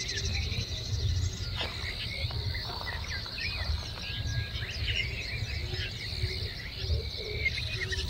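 Woodland ambience: small birds chirping and twittering over a steady, high insect trill, with a low rumble underneath.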